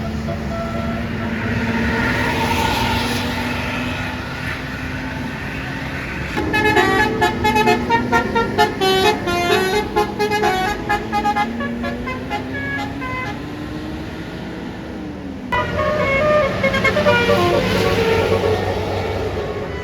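Tour bus basuri air horn playing telolet melodies. About a third of the way in comes a fast run of short stepped horn notes lasting about five seconds, and a second horn melody starts about three-quarters of the way through. Engine and traffic noise runs underneath.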